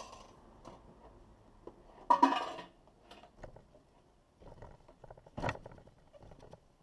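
A SilverCrest bread maker being handled and set down on a wooden table: a short clattering knock about two seconds in, another knock about halfway, and light handling clicks around them.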